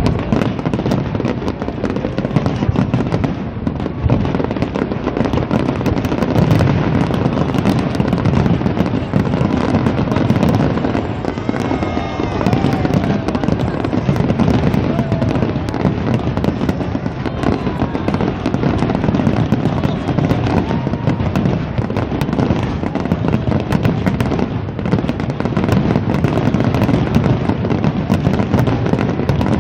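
Fireworks and firecrackers going off in a dense, unbroken crackle of many small bangs and pops, with no pause.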